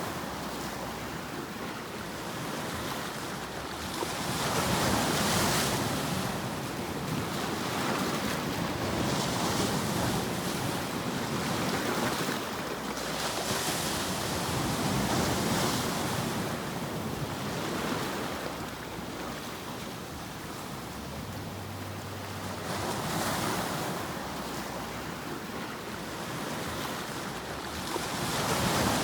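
Ocean surf: a steady rushing noise that swells and ebbs in slow surges every several seconds, used as a sleep noise track.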